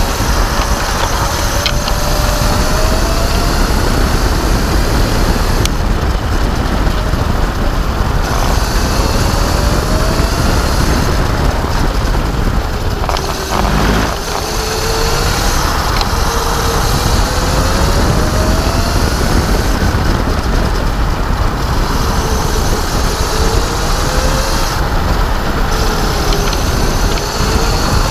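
Electric kart motor at race speed, its whine gliding up in pitch several times as the kart accelerates and dropping once about midway as it slows for a corner. A heavy low rumble of wind and road noise runs underneath.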